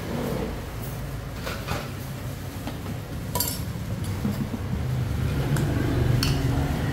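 A few sharp clinks and knocks of utensils and dishes at a food stall, the sharpest about halfway through, over a steady low hum.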